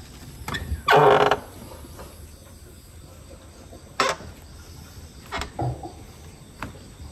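Hinged lid of a chest cooler being lifted open with a loud creak about a second in, then a sharp knock and a few smaller knocks and clicks as the lid is let down shut.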